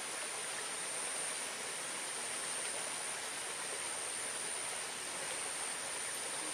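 Steady outdoor ambient noise by a field ditch: an even hiss with a thin, constant high-pitched whine over it.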